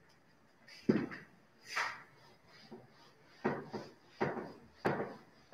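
Whiteboard duster wiping marker writing off a whiteboard in a series of short, separate swipes.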